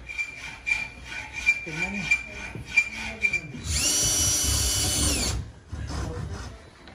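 Cordless drill spinning up, running at a steady high whine for about a second and a half, then winding down, as it bores into a wooden piece held in a vise. Before it there is a thin steady high tone with regular clicking and some voices, and a shorter, quieter burst of sound follows.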